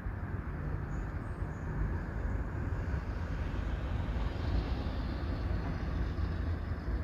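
Steady low rumble of vehicles, with a car's engine and tyre noise swelling from about four seconds in as it drives up.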